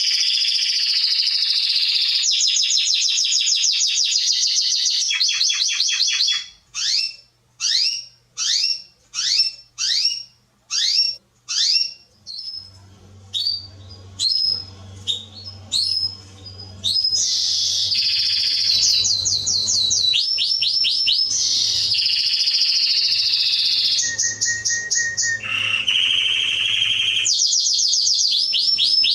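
Domestic canary singing a long song of rapid trilled rolls. About a third of the way through it slows into a run of separate downward-sweeping whistles, about two a second, then returns to fast trills.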